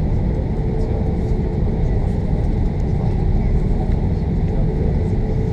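Steady cabin rumble inside an Airbus A340-600 while it taxis, from its four Rolls-Royce Trent 500 engines at low power and the wheels rolling on the taxiway, with a faint steady whine above it.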